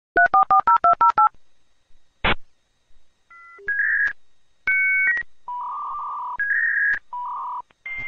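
Dial-up modem dialing a phone number with about eleven rapid touch-tone beeps, then a short burst of noise. From about three seconds in it starts the connection handshake: a series of alternating steady tones, some buzzing with hiss.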